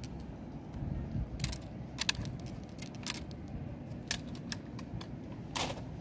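Scattered light clicks and taps from toy trucks being handled and set on a wooden table, the sharpest about a second and a half in and near the end, over a steady low background noise.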